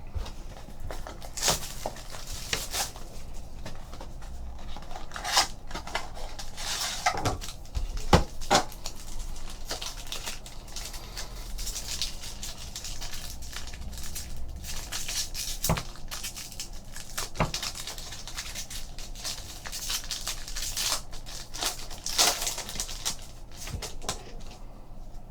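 Trading card packs being opened and cards handled: wrappers tearing and crinkling, and cards sliding and tapping against each other in irregular clicks and rustles.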